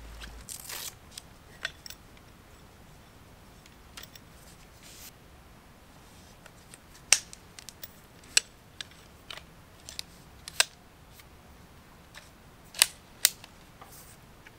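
Sharp, scattered clicks, a dozen or so with five loud ones, from an adjustable tarp pole being handled and set to height.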